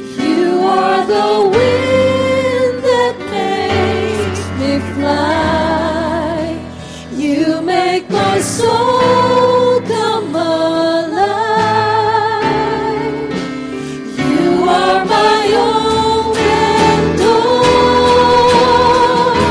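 Christian worship song: a sung melody with vibrato over sustained instrumental accompaniment.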